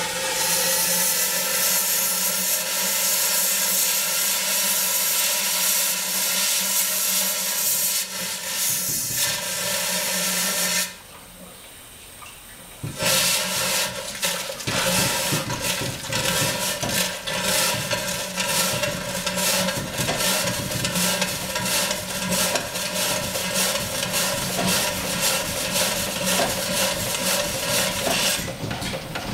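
Small stationary steam engine being started: steam hisses loudly as the valve is opened, drops away about eleven seconds in, then comes back and the engine begins to run with a fast, even chuffing while steam blows out around the cylinder.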